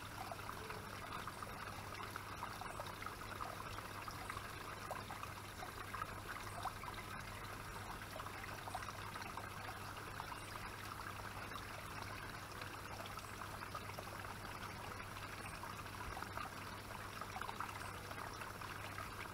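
Steady trickling and splashing of a small garden koi pond's waterfall pouring into the pond, with a low steady hum underneath.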